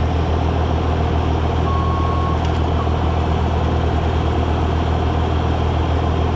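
Excavator's diesel engine running steadily with a pulsing low drone, and one short beep about two seconds in.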